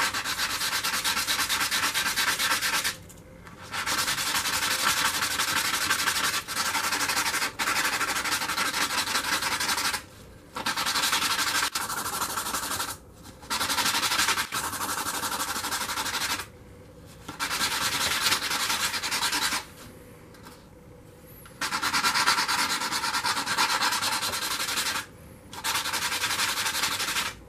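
Stainless steel stamp head being hand-sanded on 220-grit sandpaper: rapid rubbing strokes in runs of a few seconds, broken by short pauses, as the pear shader's face is smoothed.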